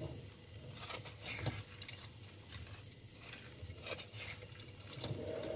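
Wooden spatula stirring sugar-coated peanuts in a metal pan: quiet, scattered rattling and scraping clicks. The peanuts are cooked, with their sugar coating set dry on them and no loose sugar left.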